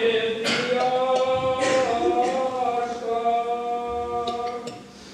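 Male choir singing Orthodox liturgical chant a cappella, holding long chords in several voices that die away near the end.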